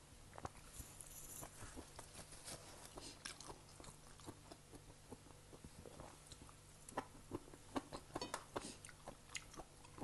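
Close-up eating sounds of a person biting and chewing a spicy Thai seafood salad with raw greens: wet, crunchy mouth clicks. They come thicker and louder about seven seconds in.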